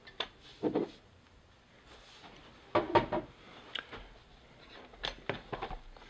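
Clicks and knocks of a laptop's plastic chassis being handled and turned over on a wooden desk, with the loudest knocks about three seconds in.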